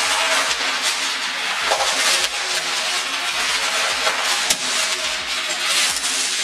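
Crinkly white gift wrapping being pulled off and out of a box by hand: a continuous irregular crackling and rustling.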